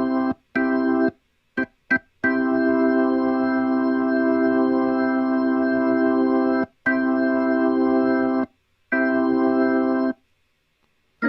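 A software organ sound played from a MIDI controller's pads. First come a few quick taps, then notes held for one to four seconds, each starting and cutting off at once with no change in tone while held. Pressing for aftertouch changes nothing audible.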